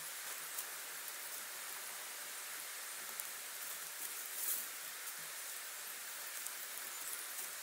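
Willow rods rustling and scraping against willow uprights as they are woven into a fence, with scattered light ticks and one brief louder swish about four and a half seconds in, over a steady outdoor hiss.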